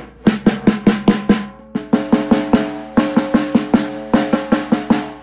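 Snare drum, its head tuned to D, struck over and over with a drumstick, about four or five hits a second with a brief pause about a second and a half in. Each hit rings with a clear pitch.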